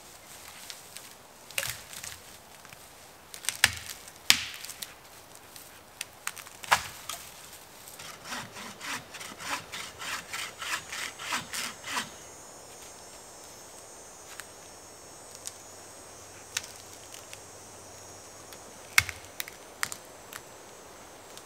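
Hand saw cutting wood in a run of quick back-and-forth strokes, about three a second, lasting about four seconds, with sharp knocks and snaps of wood before and after.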